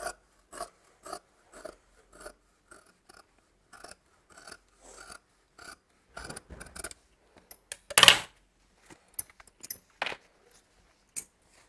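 Large tailoring shears cutting through blouse cloth along a marked neckline, the blades closing in short, regular snips about twice a second. About eight seconds in there is one louder, brief noise, then a few light clicks as the cut fabric is handled.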